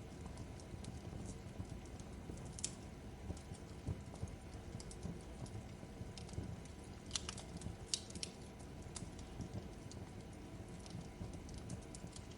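Fireplace crackling: a steady low rumble of the burning fire with irregular sharp pops and snaps, a few louder ones near the middle.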